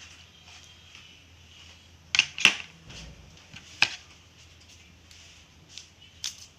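A few sharp clacks of small hard parts or tools being handled on a repair bench: a close pair about two seconds in, the loudest, another a second and a half later, and a lighter one near the end, over a faint steady hum.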